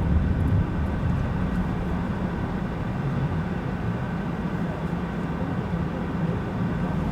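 Steady low rumble of a car driving along a road, engine and tyre noise heard from inside the car. It eases slightly about half a second in.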